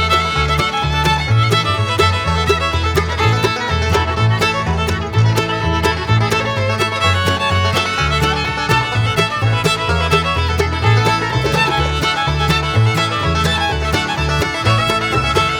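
Background music: an upbeat fiddle-led tune with a steady bass line, in a bluegrass or country style.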